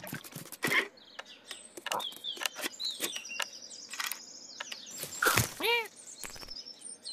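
Cartoon sound effects of a cat scrambling up a tree: a run of sharp scratchy clicks from its claws on the bark, with short bird chirps in between and a brief squeaky call a little after the middle.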